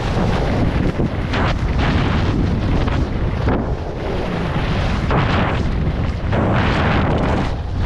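Heavy wind buffeting a GoPro's microphone at downhill skiing speed: a loud, continuous low rumble with surges of rushing hiss a few times.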